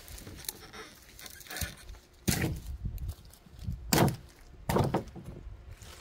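Sawn firewood logs being handled: three heavy wooden thunks, about two, four and five seconds in, with lighter knocks and rustling between them.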